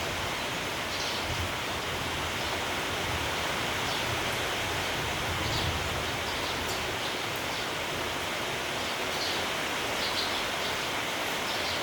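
Steady rain with wind, a constant hiss, with short faint sparrow chirps scattered through it.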